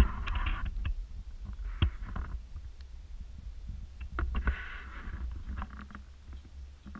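Handling noise from a hand-held GoPro Hero4 Silver as it is turned over: a low rumble throughout, with scattered clicks and short bursts of rubbing and rustling against the camera, the loudest just at the start and again about 4.5 seconds in.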